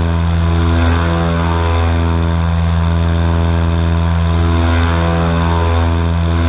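Airboat engine and propeller running with a loud, steady low drone.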